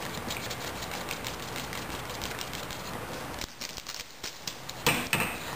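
Wrapping paper crackling and tearing as a hand peels it off a flat gift box, a dense run of small crackles that eases off after about three and a half seconds, with a few louder rustles near the end.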